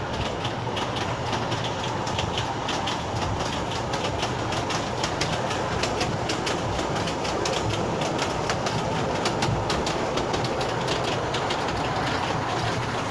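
Narrow-gauge Kurobe Gorge Railway train heard from its open-sided passenger car while running: a steady rumble of wheels on rails with rapid, irregular clicking and rattling from the wheels and the car.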